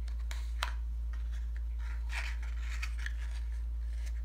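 Hands handling a white cardstock box and pushing its inner flap in: a few sharp paper clicks in the first second, then light scratchy rustling of card, over a constant low hum.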